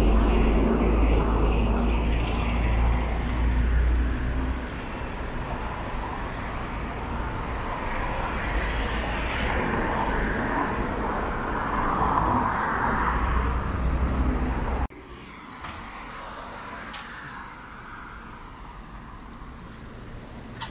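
Road traffic passing: vehicles with a deep engine rumble and tyre noise, swelling and easing as they go by. About three-quarters of the way through it drops suddenly to a quieter background hum.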